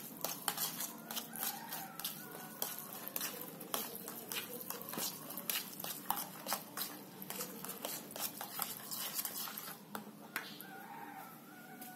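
Metal fork stirring a wet mix of mashed tofu, sardine and raw egg in a plastic bowl: irregular clicks and scrapes several times a second, stopping about ten seconds in.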